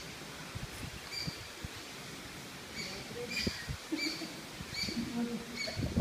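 A bird chirping repeatedly in short, clear notes, about two a second from the middle on, over low rumbling from wind on the microphone.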